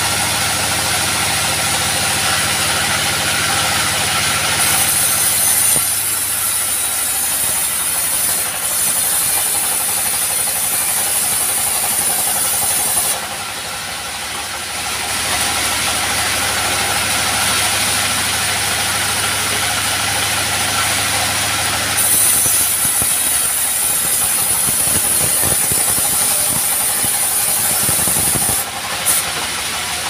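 The engine of a trailer-mounted bandsaw sawmill running steadily, with a high hiss that comes in twice for several seconds at a time and a short quieter spell in between.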